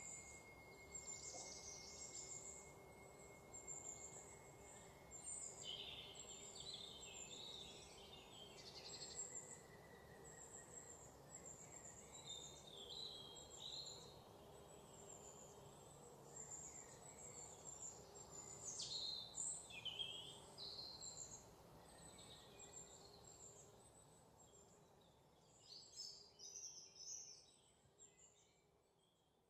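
Faint birdsong: many short chirps and trills over a low steady hum, fading away near the end.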